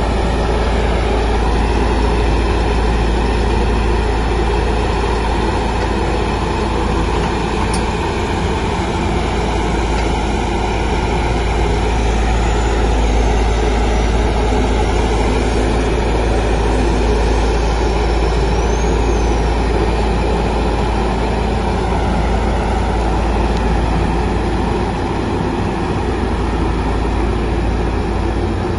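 Single-drum road roller's diesel engine running steadily as the machine drives over loose dirt, a loud continuous rumble with a deep low hum.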